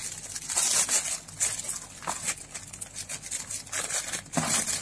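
Clear plastic zip-lock bag crinkling and rustling as hands handle it, with many small crackles.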